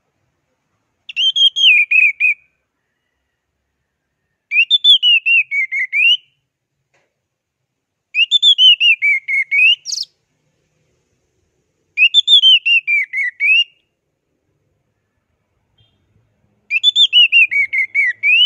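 Orange-headed thrush (anis merah) singing its fast 'teler' song: five phrases, each a quick run of whistled notes that slides down in pitch and turns up again at the end, repeated every few seconds.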